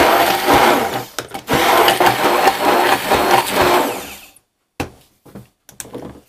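Hand-held immersion blender running in a plastic beaker, blending milk and banana into a milkshake; it dips briefly about a second in, runs on, and stops after about four seconds. A few light knocks of handling follow.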